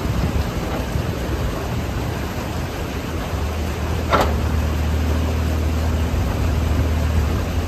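Bobcat E35 mini excavator's diesel engine running steadily, its note growing stronger a little past three seconds in as the machine swings its boom under hydraulic load. A single sharp metallic clank about four seconds in is the loudest sound, over a hiss of water rushing through the breached beaver dam.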